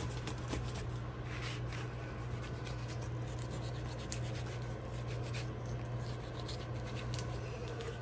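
Kitchen knife scraping over the scales of a whole sheepshead on a cutting board, in many quick, repeated strokes. A steady low hum runs underneath.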